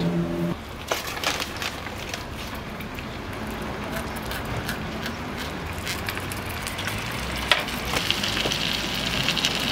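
Sausages frying in hot fat in a steel tray: a steady sizzle with scattered crackles, getting louder about eight seconds in.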